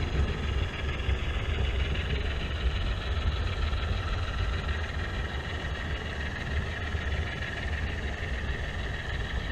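HO scale model trains running: a steady low rumble of metal wheels on the track with electric motor hum, picked up close by a camera riding at rail level.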